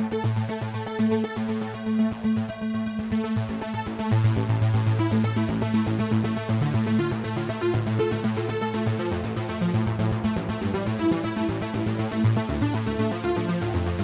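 Cherry Audio DCO-106 software synthesizer, an emulation of the Roland Juno-106, playing an arpeggiated preset: fast repeating synth notes over a held bass line. The bass gets fuller about four seconds in, and the pulse width and filter cutoff are adjusted by hand while it plays.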